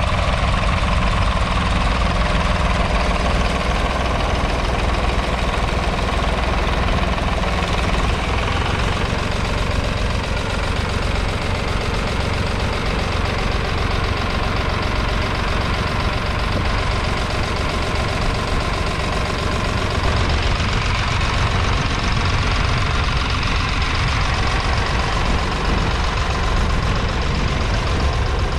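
Nuffield 10/42 tractor's 2.8-litre three-cylinder diesel engine running steadily under load as it pulls a plough through the soil, with a knocking diesel clatter.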